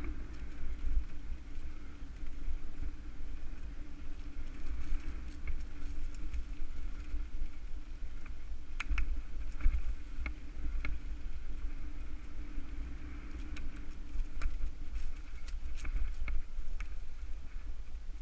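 Mountain bike ridden along a leaf-covered dirt trail: a steady low rumble of tyres and wind on the camera microphone, with scattered sharp clicks and rattles as the bike jolts over roots and rocks, more of them in the second half.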